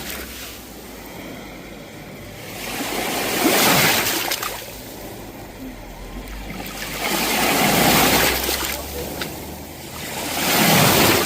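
Sea waves breaking on the shore: three surges of surf that each swell up and fall away.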